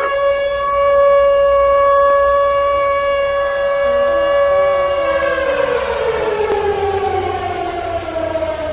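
Civil defense siren wailing: it holds one steady pitch for about five seconds, then slowly falls in pitch toward the end, sounding an attack warning.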